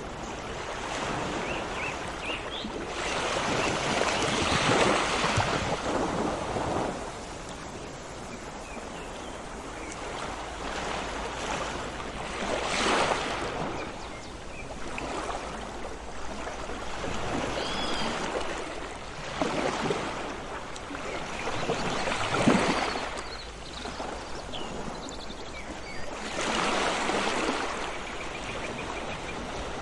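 Sea waves breaking and washing in, rising into a louder surge every few seconds, with a few faint bird chirps.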